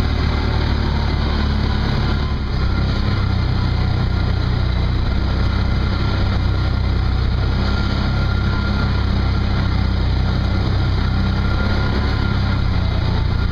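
Off-road vehicle engine running steadily under way on a dirt trail, with a brief dip in loudness about two seconds in.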